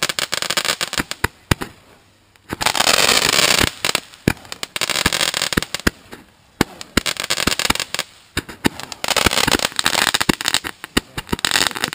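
Consumer multi-shot fireworks cake firing: a rapid series of sharp bangs, with dense stretches of crackling about three seconds in, around five seconds and again near the end.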